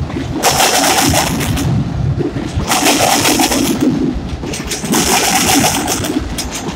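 A double-stack intermodal freight train rolling past, its wheels running on the rail. Over a steady rumble comes a burst of hissing wheel-and-rail noise about every two seconds, as each car's trucks go by.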